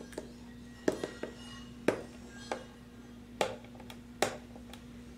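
Hard plastic packaging handled and tapped on a table: about eight sharp clicks and knocks at irregular intervals, over a faint steady hum.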